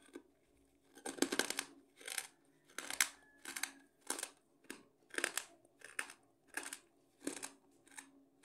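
Crisp chocolate wafer roll crunched close to the microphone: about a dozen sharp crackling crunches in a steady rhythm, roughly one every two-thirds of a second.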